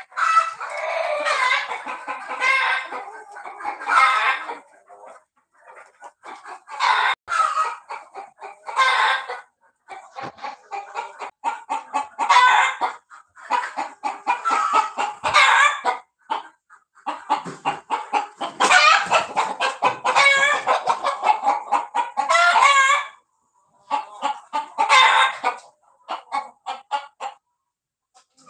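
A flock of Kadaknath chickens clucking and calling in repeated bursts of quick notes, with a rooster crowing among them.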